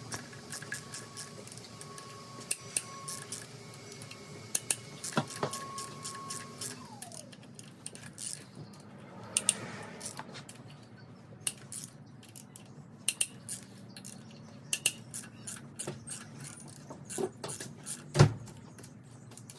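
Wrench and loose metal parts clinking and clicking irregularly as rocker-arm bolts are undone and rocker arms lifted off an LQ4 6.0 V8's cylinder heads, with one louder knock near the end.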